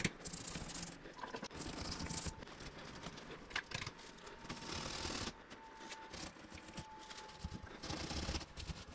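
Handling noise: rustling stretches and scattered light clicks and taps as tiling tools and materials are moved about.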